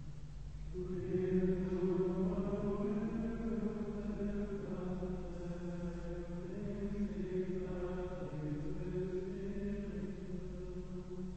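Carthusian plainchant sung by men's voices in unison, a slow, sustained melody moving in long held notes; a new phrase begins about a second in.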